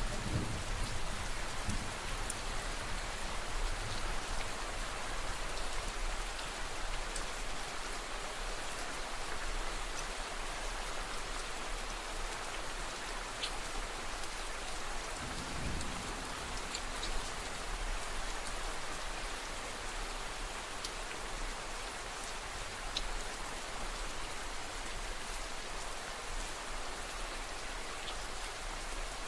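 Steady rain falling, a dense even hiss with scattered individual drop taps, and a brief low rumble near the start and again about halfway through.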